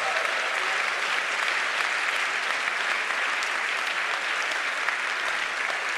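Large seated audience applauding, a dense, steady clapping that holds at an even level.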